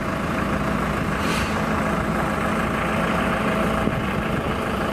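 Car engine running steadily with a low hum under road and traffic noise, heard from inside a car in slow traffic.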